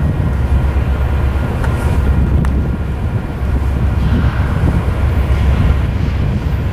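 Diesel freight locomotives approaching, their engines giving a steady low rumble.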